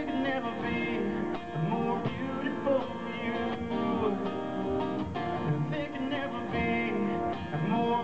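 Live acoustic guitar being strummed while a man sings into a microphone, amplified over a PA.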